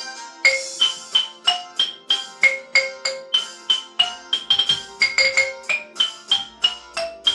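Music: a quick melody of struck notes on mallet percussion, about three a second, each note ringing briefly, over a softer sustained accompaniment. The struck notes come in about half a second in.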